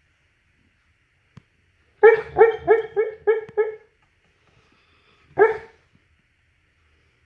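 Sleeping mastiff barking in its sleep while dreaming: a quick run of about six short woofs about two seconds in, then a single one about a second and a half later.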